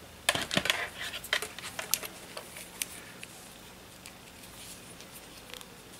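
Handling noise from a multimeter and its test leads: a quick run of clicks and rustles in the first couple of seconds, then a few scattered ticks.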